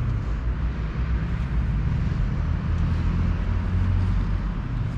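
A car engine running steadily: an even low hum with no change in speed.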